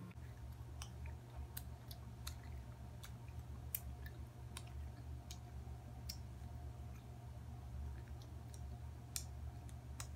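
Faint, irregular wet mouth clicks and smacks from sour candy straps being chewed, over a low steady hum.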